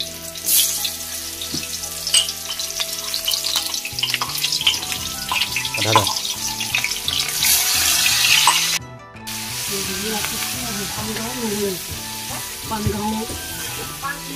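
Hot cooking oil sizzling and crackling in a steel wok as food fries in it. The sound breaks off for a moment about two-thirds of the way through, then carries on.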